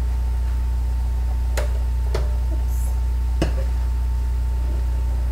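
Steady low hum with three sharp clicks, a utensil knocking against the stir-fry pan.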